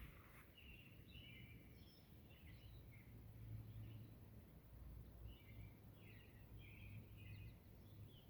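Near silence with faint birds chirping, short calls in two loose groups, over a low background rumble.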